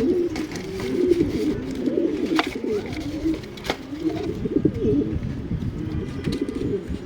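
Domestic racing pigeons cooing continuously, the low warbling calls overlapping. A couple of sharp taps come in about two and a half and three and a half seconds in.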